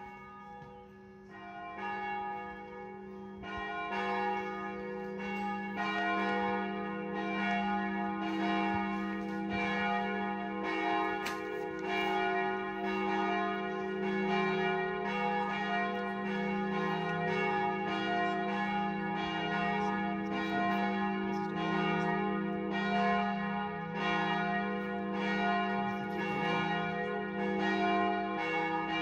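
Church bells ringing to call people to the service. The ringing starts faintly, builds over the first few seconds with more strokes joining, then keeps up a steady, continuous peal of overlapping strokes.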